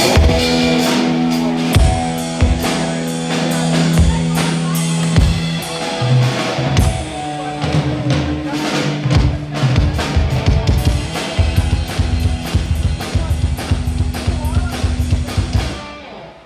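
Live band with drum kit, bass and electric guitar playing loudly through a PA during a sound check: kick and snare hits over held notes, then a moving bass line with fast, steady hi-hat strokes. The playing stops abruptly near the end.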